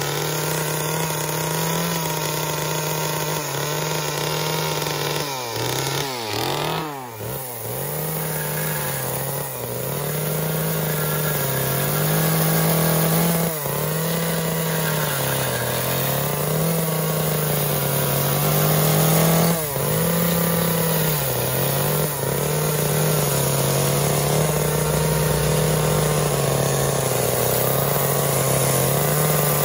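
Small two-stroke chainsaw carving wood, its engine pitch stepping up and down over and over as the throttle is worked through the cuts. About six seconds in it drops almost to idle and revs back up.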